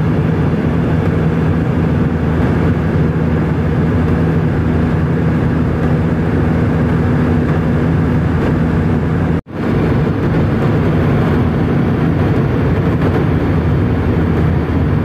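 Steady drone of a twin-jet airliner at cruise heard inside the cabin: jet engine and airflow noise with a low, even hum. It drops out for an instant about nine and a half seconds in, then carries on unchanged.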